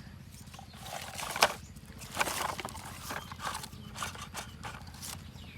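Scattered light clicks and rustles, with one sharper knock about a second and a half in.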